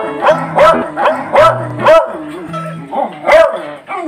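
Dog barking repeatedly and eagerly, about two or three short barks a second, begging for a snack held just out of reach, over background music.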